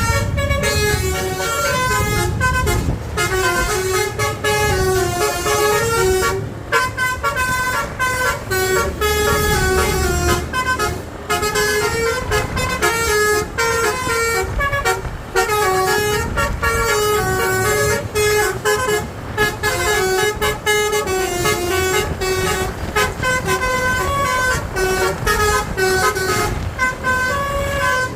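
Basuri 'telolet' multi-trumpet air horn on a coach bus playing a long melodic run, its notes stepping up and down in pitch with brief breaks between phrases.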